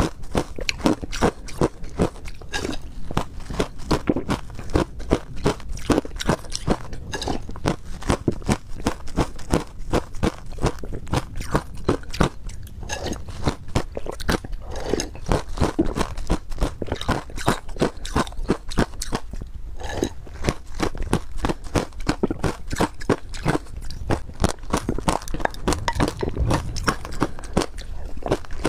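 Someone crunching and chewing mouthfuls of passion-fruit ice, a fast, unbroken run of crisp crunches with a few heavier bites.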